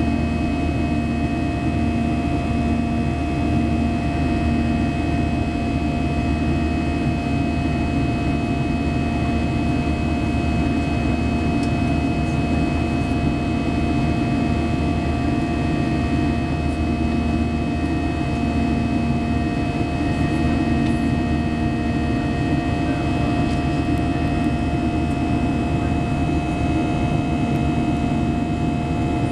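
Steady jet noise inside the cabin of a Boeing 737-800 climbing after takeoff, heard from a window seat by the engine: the CFM56-7B turbofans' low rumble with a few steady whining tones above it, and a low hum that fades in and out.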